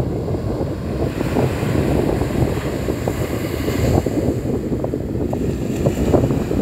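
Ocean surf breaking and washing up a sandy beach, under heavy wind buffeting on the microphone. The hiss of a wave's wash swells through the middle and fades.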